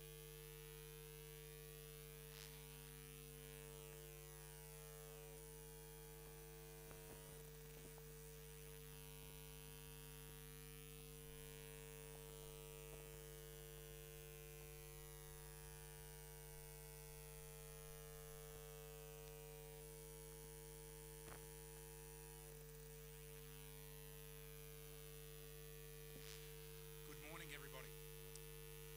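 Near silence with a steady low electrical mains hum; a few faint ticks, and a brief wavering sound near the end.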